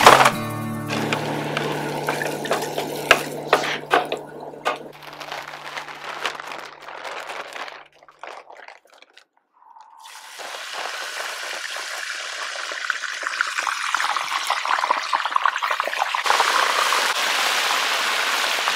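Battered crappie fillets deep-frying in hot oil in a cast-iron Dutch oven: a steady sizzle that starts about halfway through as the fillets go in, louder near the end. Before it come a few clicks and knocks, then a brief near-silent gap.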